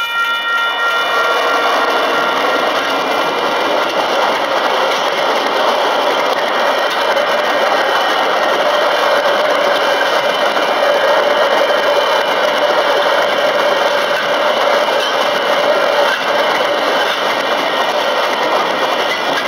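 Container freight train hauled by a diesel locomotive passing close by over a level crossing: a loud, steady rumble and rattle of the wagons rolling over the rails.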